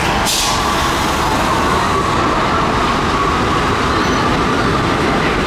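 Subway train running on the rails: a loud, steady rumble of wheels on track with a faint whine. A short burst of hiss comes just after the start.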